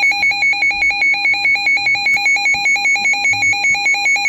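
Weather alert radio's alarm sounding: a loud, rapid, steadily pulsing two-pitch beep that signals a tornado warning received from NOAA Weather Radio.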